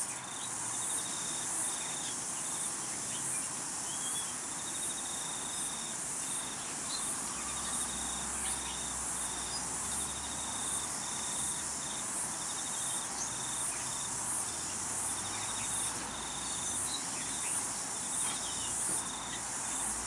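Insects chirping steadily in the background: a regular high-pitched pulsing chirp, with a trilling buzz underneath that stops and starts every second or two.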